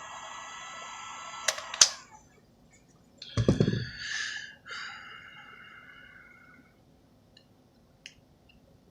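Small sharp clicks and taps of repair tools on a phone's parts. A steady high tone stops about two seconds in, just after two sharp clicks. A dull thump follows at about three and a half seconds, then a fading tone and a few faint clicks.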